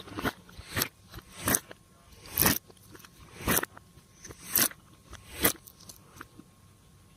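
Slime being pressed and worked by hand, giving short crackly pops about once a second.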